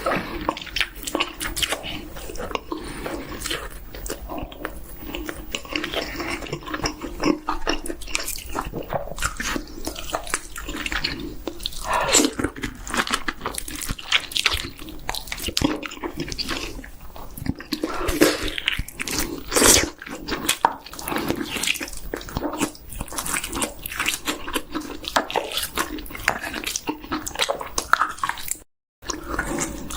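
Close-miked mouth sounds of someone eating chicken: biting, crunching and wet chewing, with a quick run of crackles and clicks. The sound cuts out briefly near the end.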